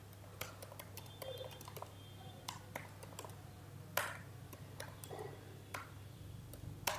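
Typing on a computer keyboard: quiet, irregular keystrokes, with two louder key clicks, one about four seconds in and one near the end, over a faint steady low hum.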